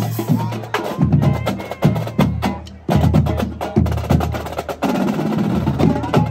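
A marching drumline of snare drums and a bass drum playing a fast cadence of rapid stick strikes. The playing thins out briefly a little before halfway, then comes back in together.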